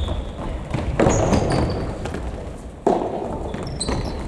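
Futsal ball struck twice, about a second in and again near three seconds, each kick echoing around the gym hall, with short high squeaks from sneakers on the court floor.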